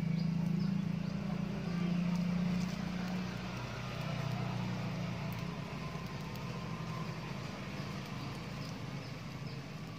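Dry palm fronds burning, with faint crackling, over a steady low hum that eases after about three seconds.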